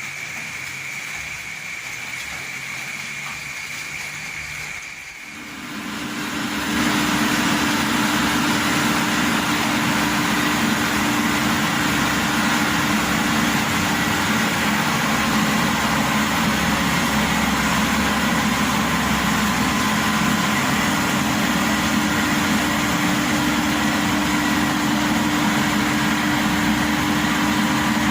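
Combine harvester engine, after a quieter steady hum, rises about six seconds in to a loud, steady run and holds there, as the machine is run after its oil service.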